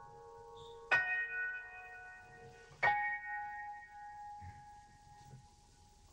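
Sparse piano music: two chords struck about two seconds apart, each left to ring and slowly fade.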